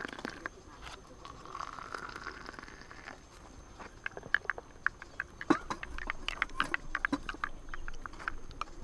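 Hot water pouring from a kettle into a glass mug of instant coffee for about three seconds. Then a wooden spoon stirs the coffee, with a quick run of clicks and taps against the glass.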